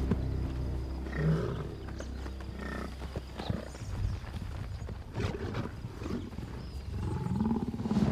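Lions growling close to a Cape buffalo herd, among scattered thuds of hooves. A louder, drawn-out growl rises and falls near the end.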